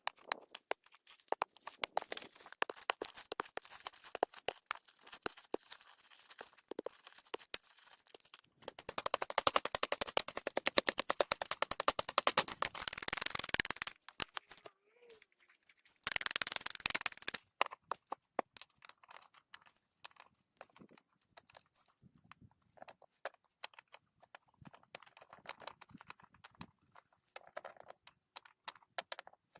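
Green branches being handled and wedged into place: scattered sharp snaps and knocks of wood. About nine seconds in there is a loud stretch of dense rustling and crackling lasting several seconds, and a shorter one a couple of seconds later.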